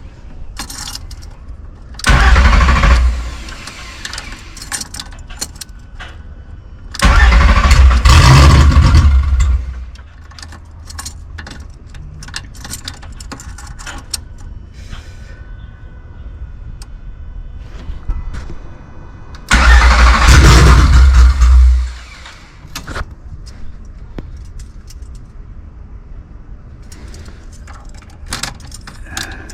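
VR6 engine in a VW Mk3 cranking on the starter three times, for about one, three and two and a half seconds, each attempt cut off without the engine running on, with light clicks between. It is a crank-no-start, which the owner suspects is a fuel or electrical fault.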